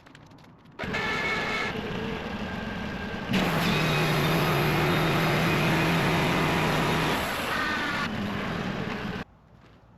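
Custom-made sawmill running, its engine and blade making a loud, steady mechanical noise. It starts suddenly about a second in and gets louder with a steady low hum from about 3 to 7 seconds, as the blade works through the log. It stops abruptly near the end.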